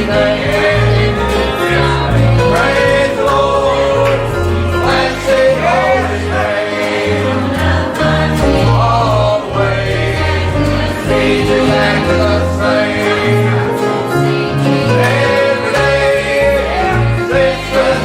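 A congregation or choir singing a gospel hymn with instrumental accompaniment and a steady bass line.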